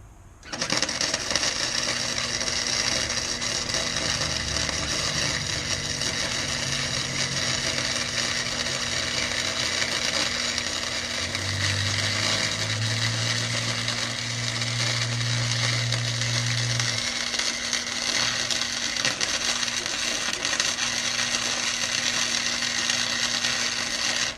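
Harbor Freight flux-core wire-feed welder laying a long bead, the arc crackling steadily for over twenty seconds. It starts about half a second in and stops abruptly, with a low steady hum underneath.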